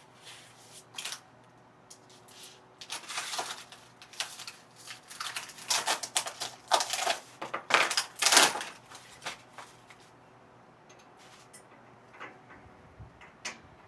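Irregular clicking and clattering of parts and hand tools being handled during assembly work, busiest in the middle and thinning to a few scattered clicks near the end.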